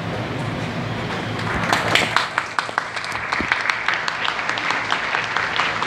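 Large indoor crowd with a steady background murmur; about a second and a half in, many hands begin clapping and the applause builds and carries on.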